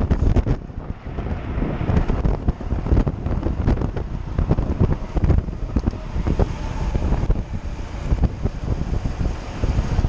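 Wind buffeting the microphone of a camera on a bicycle moving at riding speed: a dense low rumble that rises and falls irregularly.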